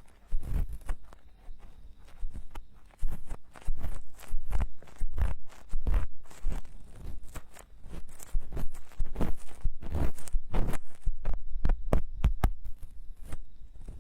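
Tools scraping and picking inside a silicone binaural microphone ear, heard up close. It is an irregular run of crackly scrapes and muffled thumps.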